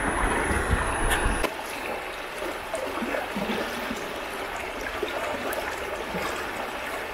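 Fast-flowing river current rushing steadily, with small gurgles from the churning water. For the first second and a half a low rumble sits under it, then stops abruptly.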